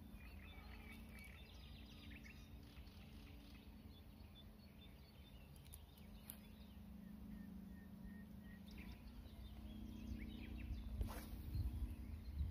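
Outdoor ambience of small birds chirping, with wind rumbling on the microphone that grows stronger toward the end. About eleven seconds in comes a single quick swish, which fits the fishing rod being cast.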